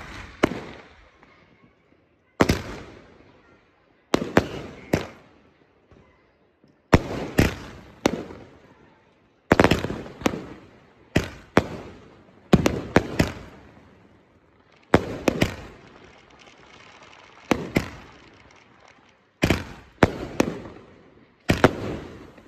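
Ground-launched aerial fireworks firing shot after shot, about every two seconds. Each shot is a sharp bang, followed within half a second by one or two further cracks as the shell bursts in the air.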